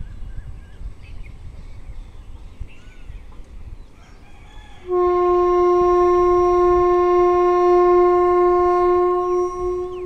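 Electric locomotive horn sounding one long, steady blast of about five seconds, starting about halfway through: the departure signal of an express train about to pull out. Before it, wind rumble on the microphone and faint bird chirps.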